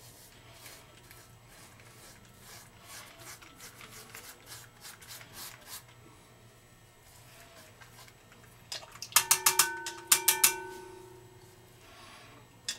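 Gillette Mach 3 three-blade razor scraping stubble in short strokes over bar-soap lather. About nine seconds in comes a flurry of sharp clicks with a ringing tone, the razor knocked against the rim of a hard bowl to clear it.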